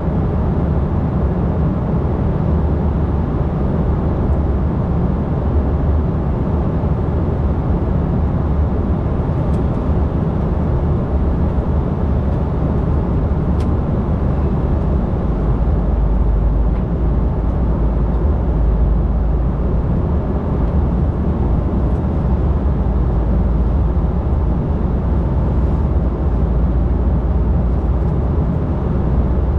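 Steady cabin noise inside an Embraer E195 airliner in flight: an even low rumble with a hiss above it.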